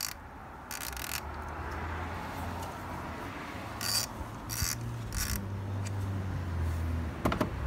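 Socket ratchet clicking in short bursts as it is swung back and forth to loosen a spark plug: one burst about a second in, then three quick bursts about half a second apart.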